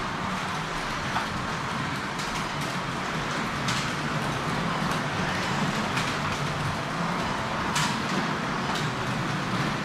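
Carrera Digital 1/24 slot cars running laps on a plastic track: the steady whir of small electric motors and gears, with brief sharp swishes several times as cars go by.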